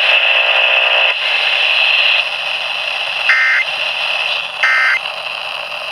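Emergency Alert System end-of-message data bursts over a steady radio hiss: two short warbling beeps about a second and a half apart, with a third starting right at the end, signalling the end of the alert.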